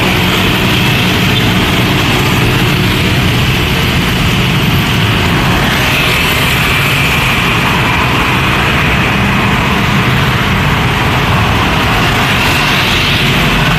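Roadside traffic: motorbikes and a car pass close by over the steady low running of an idling truck engine.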